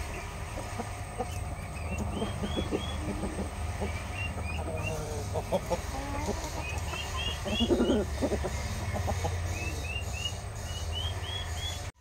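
Aseel chickens in a coop: low clucks, the loudest about three-quarters of the way in, with runs of short high chirps coming several at a time. A steady low hum runs underneath.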